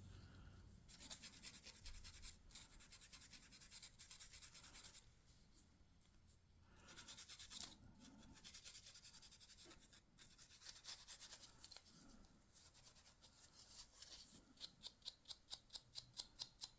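Faint hand rubbing and scraping strokes on a walnut revolver grip panel as it is worked by hand. Near the end they turn into quick, even strokes, about three a second.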